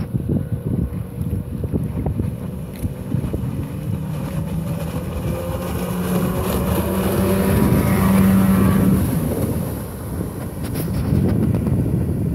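Small jet-powered catamaran motorboat passing at speed: its engine runs at a steady pitch, growing louder to a peak about eight seconds in as it goes by, then fading as it moves away. Wind buffets the microphone throughout.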